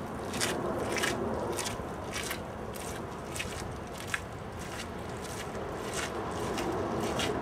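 Footsteps on wet pavement, about two steps a second, over a steady low hiss.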